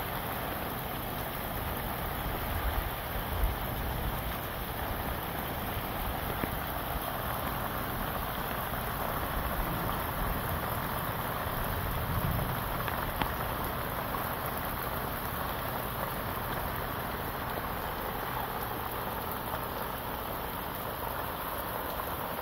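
Heavy rain falling steadily, with wind gusts rumbling on the microphone now and then.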